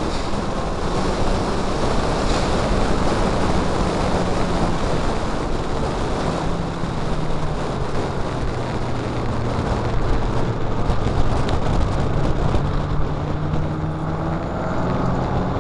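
Onboard sound of a Mazda MX-5 racing: loud, steady wind rush and road noise on the microphone, with the car's four-cylinder engine note running underneath at a fairly constant pitch.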